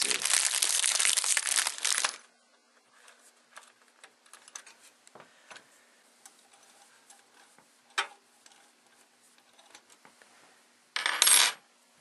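Small metal parts of a CPU cooler mount (screws, spacers and a metal bracket) being handled and screwed in: about two seconds of loud rustling and scraping, then faint clicks and clinks, a sharp clink about eight seconds in, and a short loud metallic rattle near the end.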